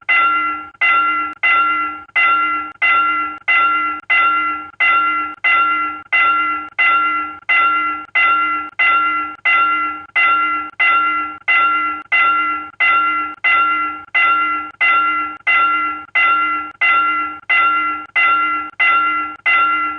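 South Korean railroad crossing warning bell ringing in a steady, even rhythm, about one and a half strikes a second. Each ring rises sharply and fades away before the next.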